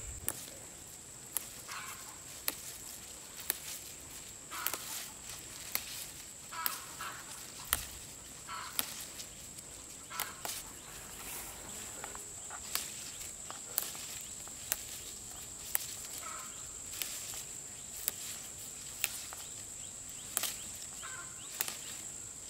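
A steady high-pitched drone of insects in the forest, with sharp clicks about once a second and brief rustles of leaves as young leaves are plucked from a plant by hand.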